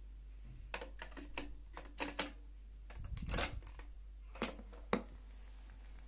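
Skytech ST-114 cassette player being loaded: a run of hard plastic clicks and clatters as the cassette is pushed into the deck and the door is shut, then the play key clunks down about four and a half seconds in with a second click just after. The deck then runs with a steady tape hiss and faint even ticking as the tape starts before the music.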